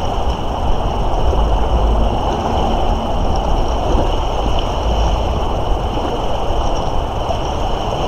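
Moira River running fast with spring thaw water: a steady rushing noise, under a heavy low rumble that swells and fades.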